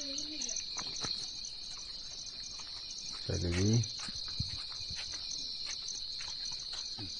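Crickets chirping steadily: a continuous high trill with a faster pulsing chirp above it. About three seconds in, a short, low, voice-like sound slides down in pitch and stops, and a few faint clicks come and go.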